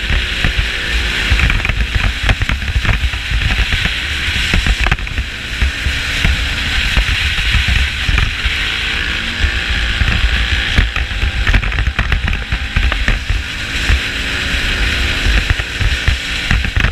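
An ATV running along a gravel road, heard from a camera mounted on the machine: constant rumble and rushing noise from wind, tyres and engine, with dense rattling and knocking from a GoPro that is loose in its snap-in mount.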